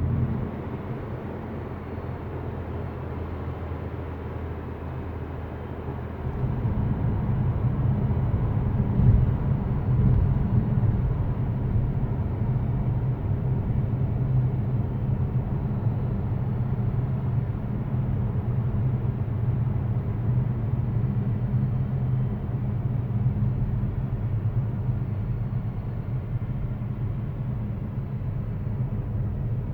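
2020 Mazda 3 with the G150 petrol engine and automatic gearbox, running with a steady low buzzing hum, the unwanted buzz its owner is reporting. The hum gets louder about six seconds in and then stays level.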